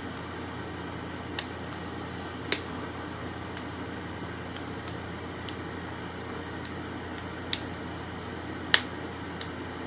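About ten small, sharp clicks at irregular intervals as the plastic pieces of a pedicure set and its broken foot scraper are handled, over a steady room hum.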